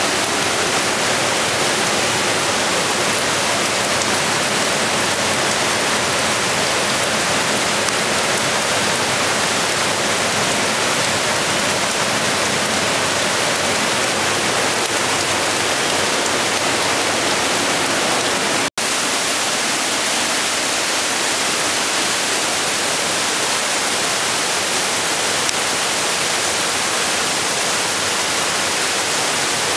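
Alpine mountain torrent and waterfalls rushing through a narrow rock gorge: a steady, loud hiss of white water. The sound cuts out for an instant about two-thirds of the way through.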